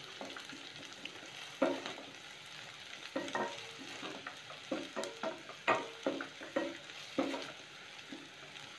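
A wooden spatula stirs sliced shallots sautéing in oil in a stainless steel pan, scraping and knocking against the pan irregularly over a steady sizzle.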